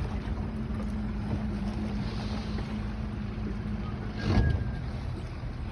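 A boat's outboard motor running at a steady hum, with a brief thump about four seconds in.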